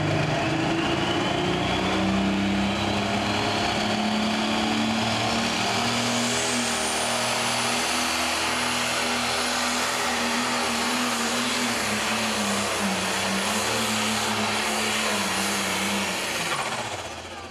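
Pro stock pulling tractor's turbocharged diesel engine running at full throttle under heavy load, pulling a weight-transfer sled. A high turbo whistle rises steadily in pitch over the first several seconds, then holds high and steady. Near the end, the engine and the whistle drop away as the throttle comes off.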